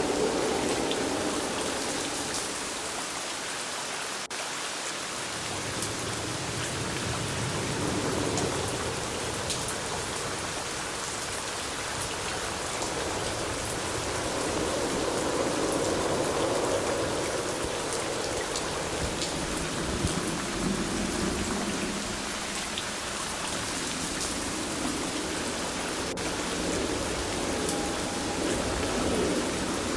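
Steady rain falling, with fine drop ticks, and a low rumble that swells and fades slowly several times.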